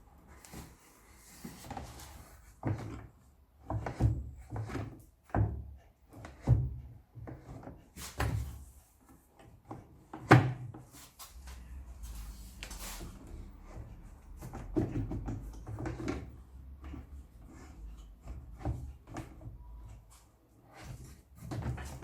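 Homemade wooden table saw fence being handled, slid and clamped: a series of irregular wooden knocks and clunks, the sharpest about ten seconds in.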